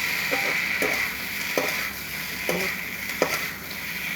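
Chicken chilli sizzling in a pan while a spoon stirs it, scraping and knocking against the pan about once a second.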